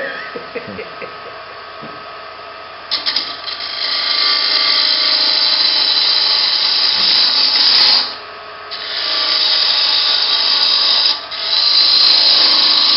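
A gouge cutting into a wooden bowl spinning on a lathe, a loud steady hiss of shavings coming off. It starts about three seconds in, breaks off briefly twice as the tool is lifted, and resumes.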